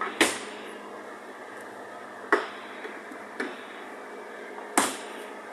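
Four sharp knocks from the fridge being handled, the loudest just after the start and near the end, over a steady background hum.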